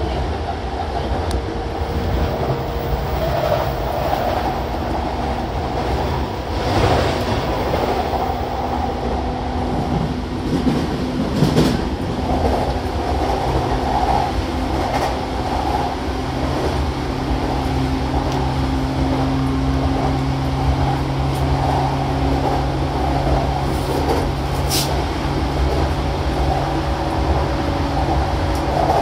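Running sound inside the motor car of an E233 series 7000 electric commuter train at speed: a steady rumble of wheels on rail, with the steady hum of the traction motors. Two sharp clacks come from the running gear, one about a third of the way in and one near the end.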